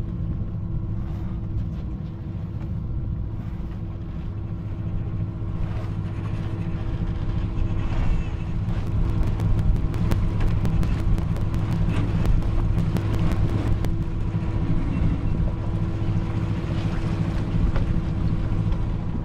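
Sailboat's inboard or auxiliary engine running steadily while motor sailing, an even low drone. For several seconds midway a rapid crackle of sharp clicks sounds over it.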